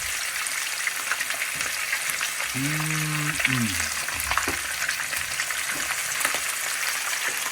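Seasoned fish frying in hot vegetable oil: a steady sizzle with scattered crackles and pops.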